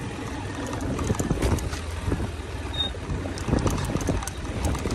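Motorcycle running steadily along a rough dirt track, with a low engine rumble and frequent knocks and rattles from the bumps.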